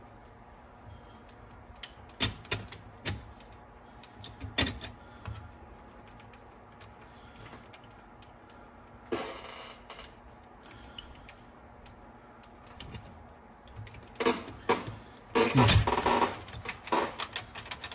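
Scattered clicks and knocks of small parts of a cassette deck mechanism being handled, with a burst of clatter near the end.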